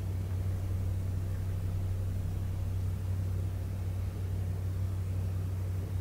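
A steady low hum with a faint hiss over it, unchanging throughout: the room's background tone.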